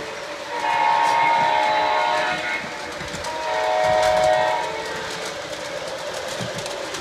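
Model train's horn sound effect giving two long blasts, each a held chord of several tones, the second starting a little over three seconds in. Underneath, the model train runs along the shelf track with a steady rumble and clicking.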